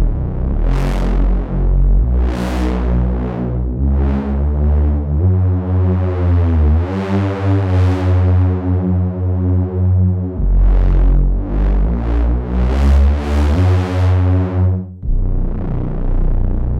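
Sequential Prophet Rev2 polyphonic analog synthesizer playing a patch of deep sustained bass notes and chords, with bright airy sweeps rising and falling over them. About halfway through, the pitch bends down and back up. The sound begins to fade near the end.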